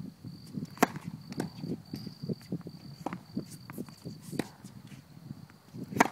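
Tennis serves: a racket strikes the ball with a sharp pop about a second in and again near the end, with lighter knocks of bounces and other hits in between.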